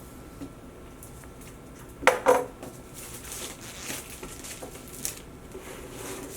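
Plastic shrink-wrap being cut and pulled off a boxed laptop, with two sharp knocks or clinks about two seconds in, then softer rustling and a few small clicks.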